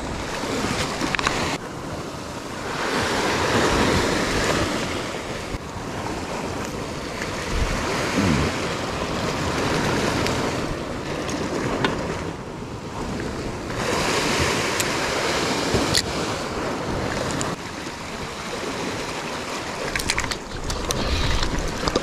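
Rough surf breaking and washing in under a strong wind, surging and easing every few seconds: a heavy sea stirred up by an approaching typhoon.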